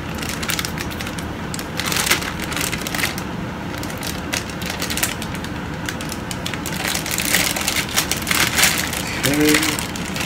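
Small sealed plastic bag crinkling and rustling as it is handled and cut open with scissors, in irregular bursts that are busiest about two seconds in and again late on.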